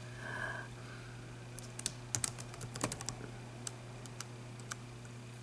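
Computer keyboard being typed on: sparse, irregular key clicks as a few words are entered, over a steady low hum.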